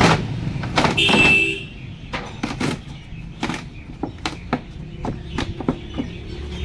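Metal knocks and clanks at an uneven pace from a refrigerator being broken apart for scrap, with a brief high squeal about a second in, over a steady low hum.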